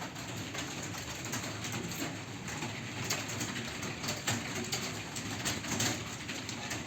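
Many computer keyboards clattering at once in a small room, a dense, irregular stream of key clicks from several people typing.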